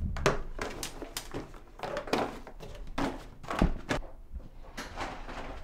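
Small toiletry items handled and set down on a bathroom sink counter: a run of irregular light knocks and clatters, easing off a little past the middle.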